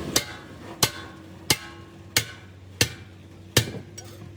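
Six evenly paced hammer blows, about one and a half a second, each ringing briefly, over a faint steady hum.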